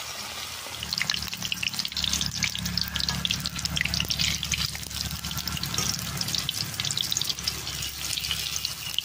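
Hot oil in an aluminium kadai sizzling and crackling as gram-flour-battered yardlong-bean chops deep-fry, growing louder about a second in as another battered chop is lowered into the oil. A steady low rumble runs underneath.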